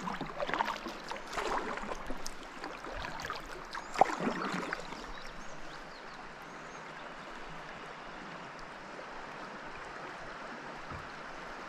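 Water splashing and lapping around a drifting kayak for the first few seconds, with one sharp knock about four seconds in, then a steady rush of flowing river water.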